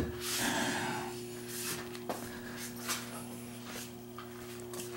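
Handling noise: a knock at the start, then rubbing and rustling with a few light clicks, over a steady low hum.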